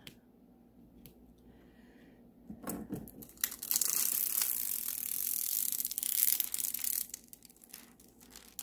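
Clear plastic protective film being peeled off a diamond painting canvas: a crackling, tearing rustle that starts about two and a half seconds in and lasts about four seconds, then tails off into a few faint crackles.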